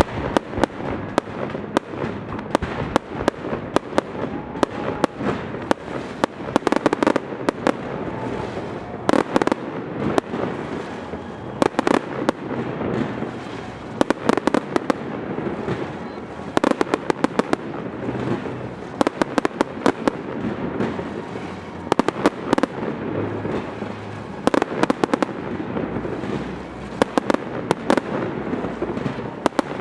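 Aerial fireworks display: shells bursting one after another, with clusters of sharp cracks and bangs coming every second or two over a continuous crackling din.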